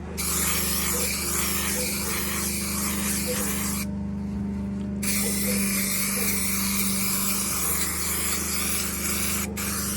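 Aerosol can of spray adhesive hissing in two long bursts, about four seconds and then about four and a half, with a one-second break between them.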